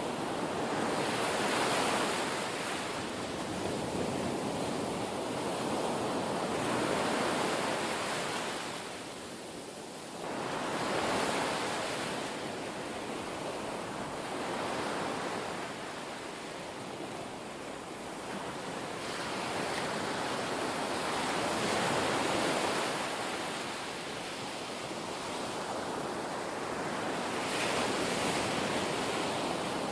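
Ocean surf: waves washing in and drawing back, a steady hiss that swells and fades about every four to six seconds.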